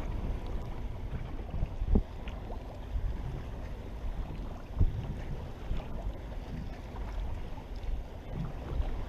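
Steady low wind rumble on the microphone out on the water, with a couple of light knocks about two and five seconds in.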